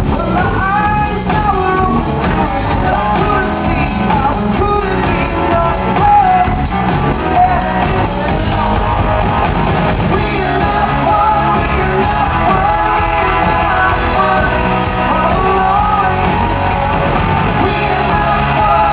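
Live rock band playing loudly, with a singer's voice over the instruments.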